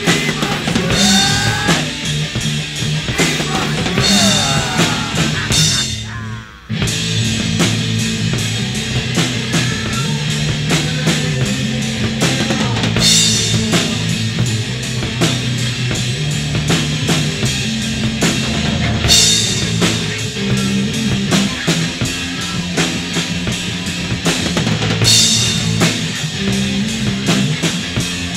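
Rock song played by a band, with a drum kit driving a steady beat. The music drops out for a moment about six and a half seconds in, then comes straight back.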